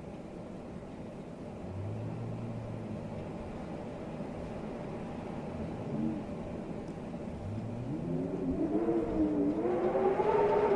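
Strong storm wind blowing, with a low steady hum at first and then a howl that rises in pitch, wavers and grows louder over the last few seconds.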